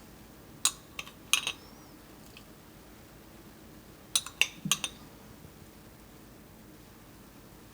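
Cookware and utensils clinking: a few sharp clinks about a second in, and three more around four to five seconds in.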